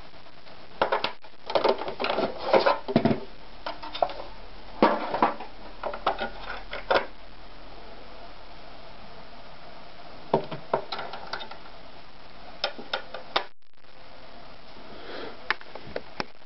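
Hands handling the plastic parts of an AEG NM 1800 sewing machine: bunches of scattered clicks and knocks as the bobbin is taken off and fitted into the bobbin area, and the accessory-tray extension table is put back on. No motor is running.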